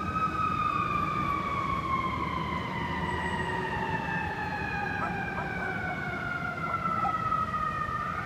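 Fire truck siren wailing, its pitch sliding slowly downward and beginning to climb again near the end, over a low rumble of street traffic.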